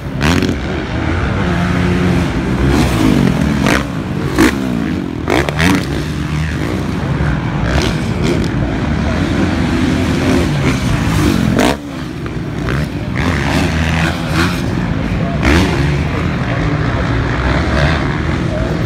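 Motocross bikes racing, their engines revving hard and falling back over and over as riders work the throttle through jumps and corners, with the pitch climbing and dropping repeatedly.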